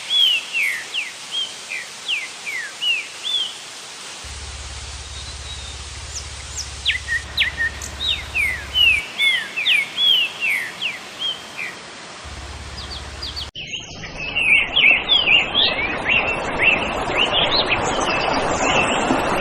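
Small birds chirping in quick runs of short, falling notes over a soft steady hiss. About two-thirds of the way through the sound cuts abruptly to a louder rushing noise with the chirping still going on above it.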